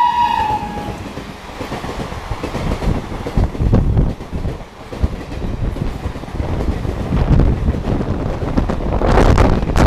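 Passenger train coaches behind a WAP-7 electric locomotive rushing past at about 110 km/h, a steady rumble and rush with rapid clicking of wheels over rail joints. A horn note ends in the first second, dropping slightly in pitch. A louder rush of wind comes near the end.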